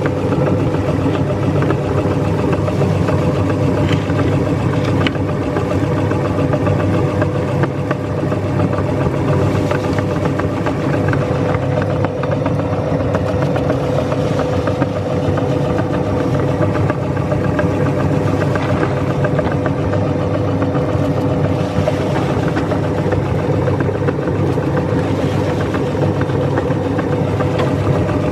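Electric meat grinder running steadily, its motor giving a constant hum with a grinding rattle underneath.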